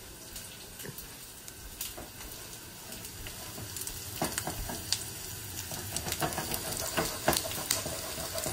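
Lemon-butter sauce bubbling and sizzling in a skillet over a gas flame while a silicone spatula stirs it, with scattered scrapes and taps against the pan. The stirring grows a little louder about halfway through.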